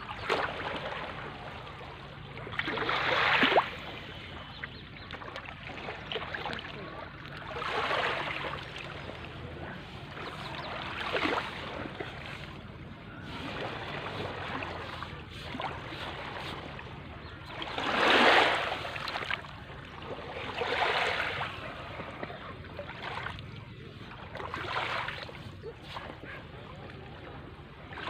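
Waves washing in one after another, each rising to a rush and falling away every few seconds over a steady wash of water; two of the surges, about three seconds in and again near the middle, are louder than the rest.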